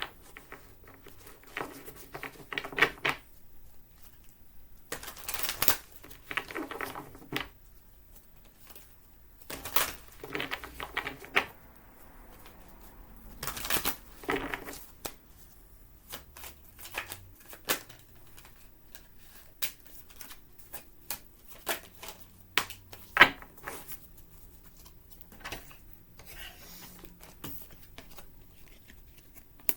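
Oracle cards being shuffled and handled: short bursts of shuffling in the first half, then scattered single clicks and taps as cards are laid down.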